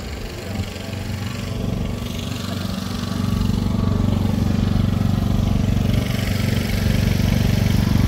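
An engine running at a steady speed, getting louder about three seconds in.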